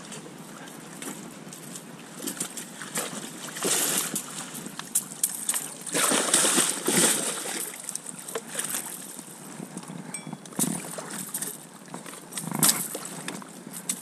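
Water splashing and sloshing in bursts as a large catfish thrashes at the surface while being landed; the loudest and longest stretch of splashing comes about six seconds in, with another burst near the end.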